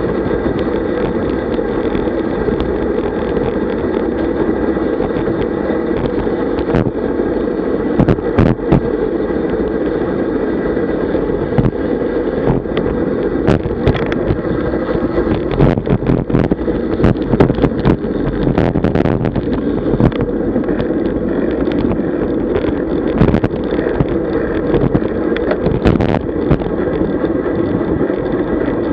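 Steady rush of wind over a bicycle-mounted camera's microphone and tyre noise from a road bike riding fast on asphalt, with frequent short clicks and knocks, thickest in the middle stretch.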